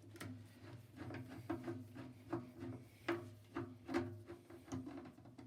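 Metal parts and tools on a microwave's fan mounting being handled and unscrewed: a run of irregular clicks and knocks over a low, steady hum.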